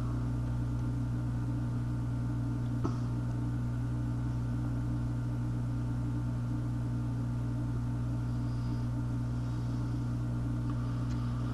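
Hot-air rework station blowing hot air onto a circuit board with a steady hum and a faint hiss, heating a chip whose solder has not yet let go.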